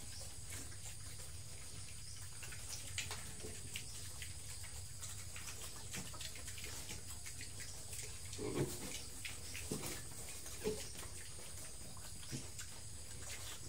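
Young pigs eating from a concrete trough: scattered chewing and smacking clicks, with a louder short low sound, likely a grunt, about eight and a half seconds in and another near eleven seconds.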